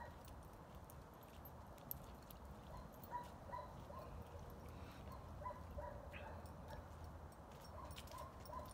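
Faint footsteps of a person and a young pit bull puppy walking on wet asphalt, with soft scattered scuffs and a few short, faint high squeaks.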